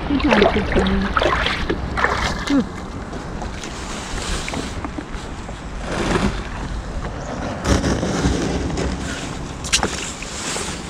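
Water splashing and sloshing around a kayak as it is launched and paddled off, in uneven surges, with a couple of sharp knocks near the end.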